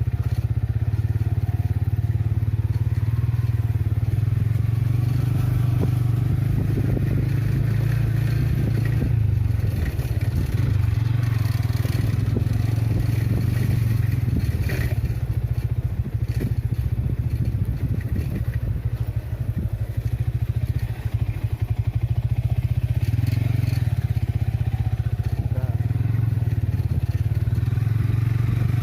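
An engine running steadily with a low, even drone, wavering for a few seconds near the middle.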